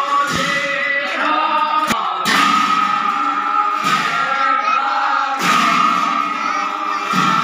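Assamese devotional group chanting (naam): a group of men singing together in sustained, drawn-out lines, with a bright rhythmic accent every second or two.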